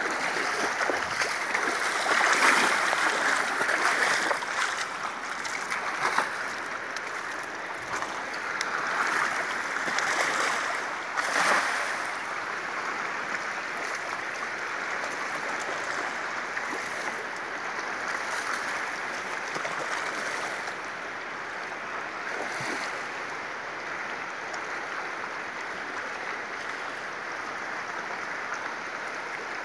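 Fast-flowing river water rushing steadily, with splashes from a person wading through it in the first dozen seconds, after which the rush carries on evenly.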